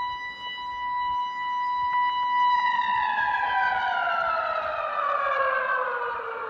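Public outdoor siren sounding the noon time signal: a steady wailing tone that, about halfway through, starts winding down, its pitch falling slowly and steadily.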